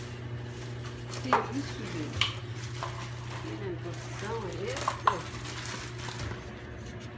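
Unpacking sounds as a new air compressor is handled: a few sharp clinks and knocks from its parts and accessories, with some squeaky rustling of packaging, over a steady low hum.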